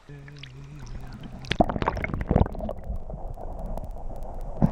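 Stream water sloshing, splashing and gurgling as a rainbow trout is let go from a landing net in the shallows, heard muffled once the microphone goes under the water. The splashes come irregularly, loudest about a second and a half in, again near two and a half seconds, and at the very end.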